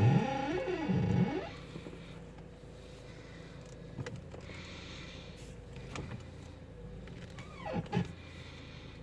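Acura TSX front suspension squeaking as the steering wheel is turned: a pitched squeal that slides up and down for about the first second and a half, and again briefly near the end, over a faint engine idle with a couple of light clicks. The owner suspects the struts, which white lithium grease only quieted for a while.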